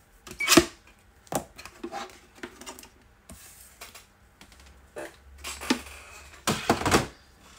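Knocks, clacks and scrapes of craft tools being handled and set down on a desk: a plastic paper trimmer is moved off a cutting mat and scissors are put down. The loudest clack comes about half a second in, with a longer rattling scrape near the end.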